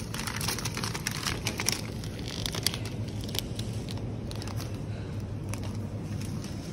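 Crinkling, rustling noises made of many quick clicks, densest in the first few seconds and thinning out after, over a steady low hum.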